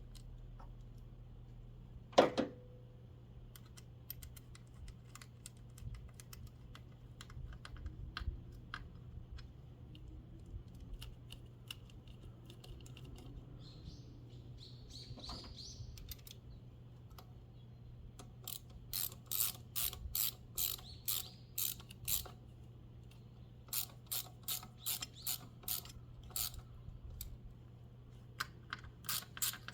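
Ratchet wrench clicking in quick runs as it is swung back and forth, three bursts in the second half. There is a single sharp knock, the loudest sound, a couple of seconds in, and light scattered clicks of tools being handled.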